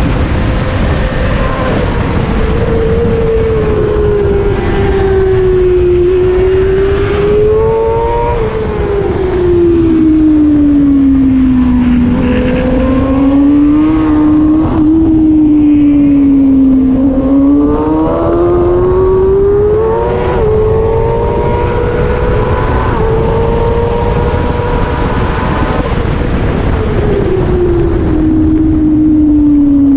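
Kawasaki ZX6R inline-four racing engine held at high revs at full race pace, its pitch sinking and climbing again as the bike slows for corners and drives out of them, over heavy wind rush.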